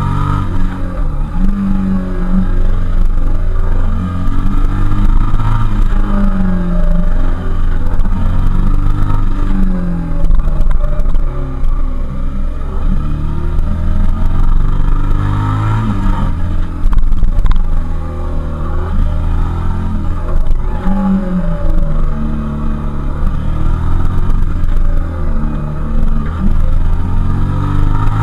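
Suzuki SV650S K3's 645 cc 90-degree V-twin under way, its revs rising and falling again and again as the rider accelerates out of and rolls off into a run of bends, with a low wind rumble at the microphone.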